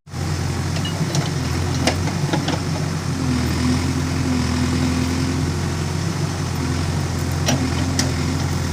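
Heavy diesel engine of earth-moving machinery running steadily with a low, even hum. A higher steady tone joins for about two seconds in the middle, and a few faint clicks sound.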